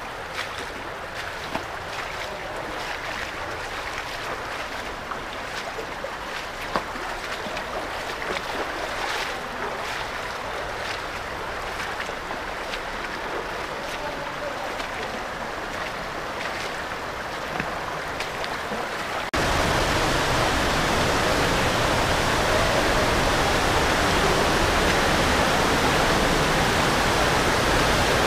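Shallow creek water rushing over stones in a narrow slot canyon, with scattered clicks and splashes. About two-thirds in it cuts abruptly to a much louder, steady rush of water.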